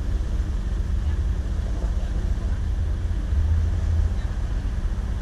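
Steady low rumble with a faint constant hum underneath, swelling slightly about three and a half seconds in.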